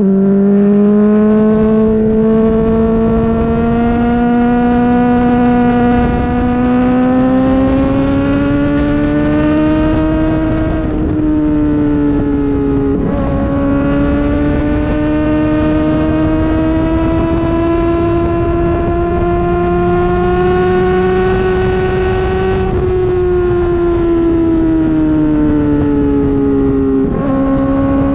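Honda CBR600RR's inline-four engine running hard at high revs, its pitch climbing slowly in long pulls. The pitch drops sharply twice a little before the middle, climbs again, and falls away near the end.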